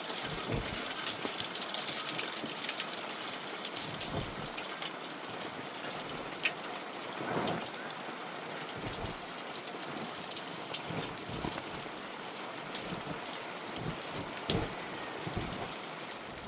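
Heavy rain falling: a steady hiss with many drops ticking, and a few dull low thumps here and there.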